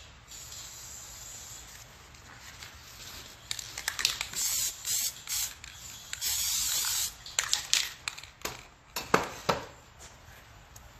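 Aerosol spray paint can spraying: several short hissing spurts, then one steady spray of about a second. A few sharp clicks and knocks follow.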